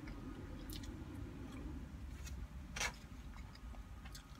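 Plastic fork clicking and scraping in a takeout food container, with one louder crackly scrape about halfway through, over the steady low rumble of a semi truck's engine running nearby.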